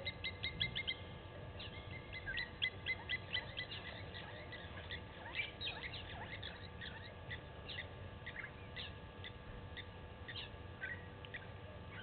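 A flock of small songbirds chattering: many short, high chirps in quick runs, densest in the first few seconds and thinning toward the end.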